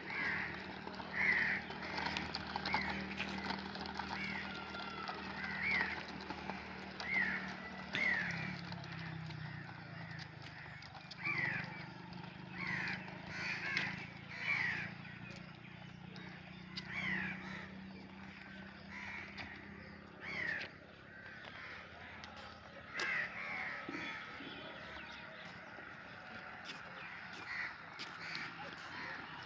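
Crows cawing repeatedly, many short falling calls, over a steady low hum from the toy tractor's geared electric motors that fades out after the middle.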